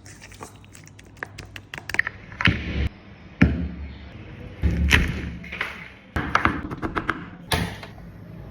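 Irregular kitchen handling sounds: sharp taps and clicks with several heavier thuds, like cookware and ingredients being knocked and set down.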